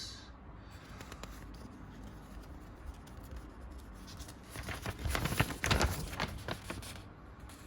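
Paper instruction booklet being handled and its pages turned: soft rustling, with a louder burst of crinkling and clicks about five seconds in.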